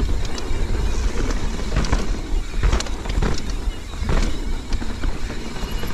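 Mountain bike descending a dirt trail, heard from a rider-mounted camera: wind rushing over the microphone and tyres rumbling over the ground, with several sharp clatters as the bike hits bumps.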